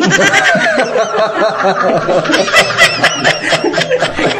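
Several people laughing and giggling together, voices overlapping in quick bursts.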